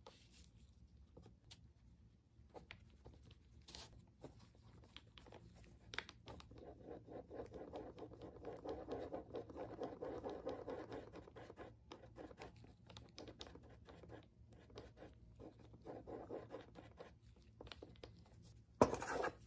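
Faint scratching and scraping from hand work on the knife, strongest in the middle, with scattered small clicks and one sharp knock near the end.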